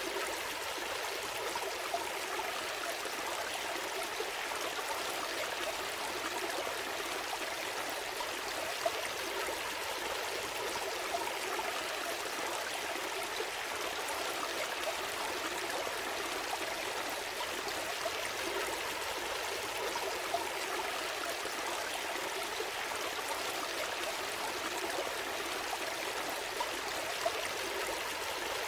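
Gentle stream flowing steadily, water trickling and splashing over stones, with a few faint brief splashes.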